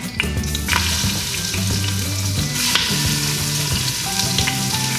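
Pieces of pork Boston butt sizzling in hot oil in an Instant Pot on its sauté setting as they are added for browning. The sizzle swells a little under a second in and keeps up steadily.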